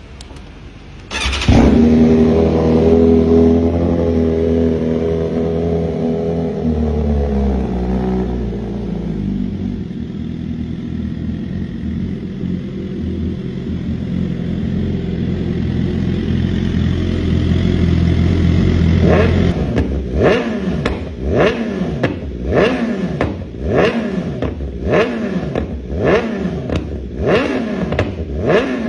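BMW S1000RR inline-four sport bike engine starting up a little over a second in, its idle starting high and settling lower over the next several seconds, then idling steadily. From about twenty seconds in the throttle is blipped about a dozen times in quick succession, each rev rising and dropping back.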